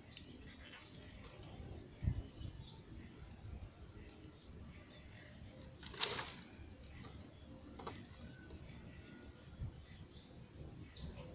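Small birds calling: scattered faint high chirps, a high thin note held for about two seconds in the middle, and a quick run of high falling chirps near the end. A dull thump about two seconds in.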